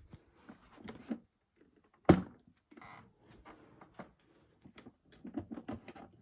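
Scattered knocks, bumps and rustles of handling, with one sharp thump about two seconds in.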